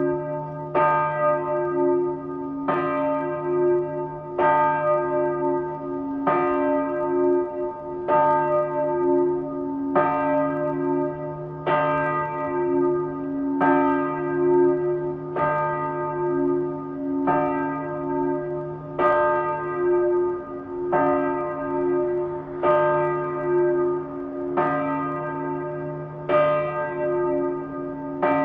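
Small church bell swinging and ringing, one stroke about every two seconds, each stroke ringing on into the next. The recording is played back at half speed, which lowers the pitch and stretches the strokes.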